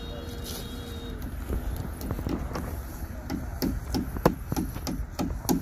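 Hammer knocking on the wooden framing of a shed, a fast irregular run of knocks that begins about a second and a half in and grows louder toward the end.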